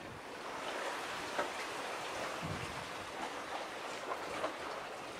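Small waves washing and splashing at the water's edge: a steady wash of water with a few sharper splashes.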